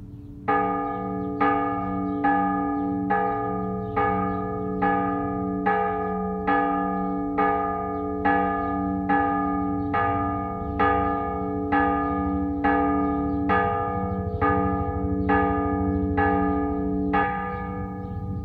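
A single church bell struck steadily about once a second, the same note each time, each stroke ringing on under the next: a llamada, the bell call of a Mexican parish church.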